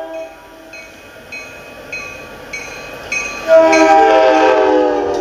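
A bell dinging steadily, about every 0.6 seconds, as a diesel commuter train approaches; about three and a half seconds in, the locomotive's air horn sounds a long chord blast, the loudest sound, still going at the end.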